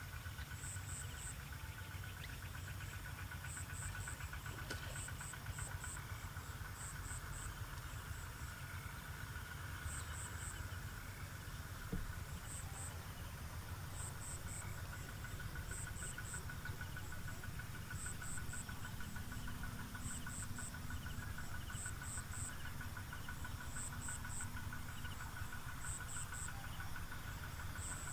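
Insects calling in a rice field: a steady fast trill, with high chirps in short groups of two or three repeating every second or two, over a low steady rumble.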